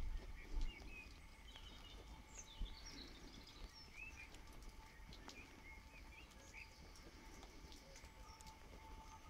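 Small birds chirping and twittering faintly, in short rising and falling notes, over a steady low background, with a couple of low thumps in the first second.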